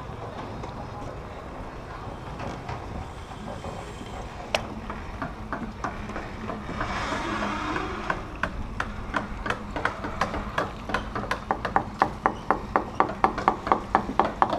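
Sharp rhythmic clicking as a new forestay with its aluminium furler foil is hauled up a yacht's mast. It starts about four seconds in and gets faster and louder, reaching about three clicks a second near the end.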